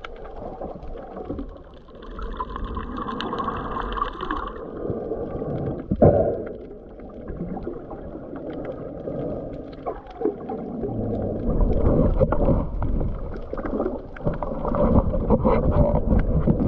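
Muffled underwater sloshing and gurgling of water around a camera held just under the surface, with scattered clicks and a sharp knock about six seconds in.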